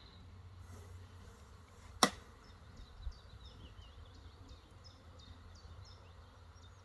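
One sharp click about two seconds in, over a low steady rumble. A small bird sings a quick run of short, high, falling notes through the second half.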